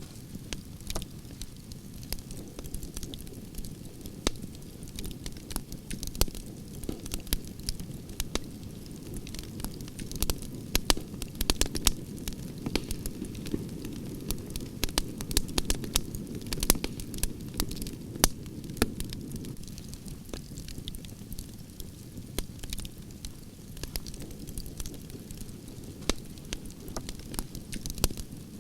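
Campfire of burning logs crackling, with irregular sharp pops over a steady low rumble of flame; the pops come thickest about halfway through.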